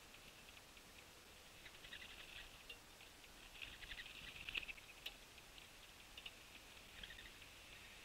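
Faint, quick ticking and tapping in short clusters, from birds pecking seed and peanuts at the feeders, with the sharpest click about halfway through.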